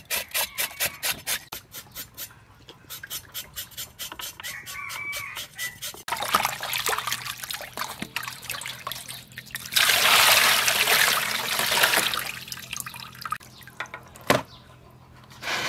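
Hands scrubbing raw pork in a metal bowl of water: quick rhythmic splashing strokes, several a second, giving way to sloshing. About ten seconds in comes a louder steady rush of water for a couple of seconds, and near the end a single sharp knock.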